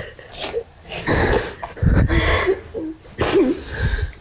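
A woman sobbing: repeated breathy, gasping bursts of crying, some with a short wavering cry in the voice.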